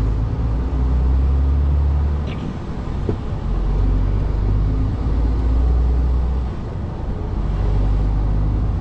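Class one HGV's diesel engine running as the lorry pulls away and drives on, heard from inside the cab as a steady low rumble. The engine note eases off briefly twice, about two and a half and six and a half seconds in.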